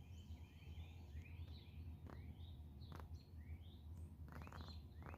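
Songbirds chirping in a dawn chorus: many short, quick rising chirps, overlapping, faint, over a steady low rumble, with a few sharp clicks.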